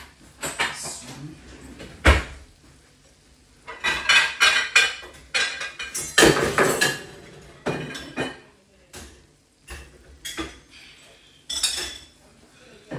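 Clattering of dishes and metal utensils: a string of clinks and knocks, with a heavy knock about two seconds in and denser clattering around four and six seconds.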